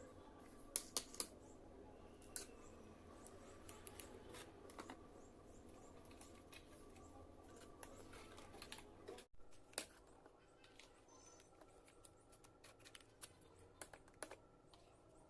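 Scattered light clicks and taps of small plastic miniature toy pieces being handled and set down, over faint room noise.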